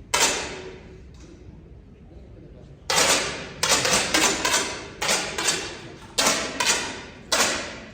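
About ten air rifle shots from several shooters on the range, sharp cracks each ringing briefly in the hall: one just after the start, then a quick, irregular run of shots from about three seconds in.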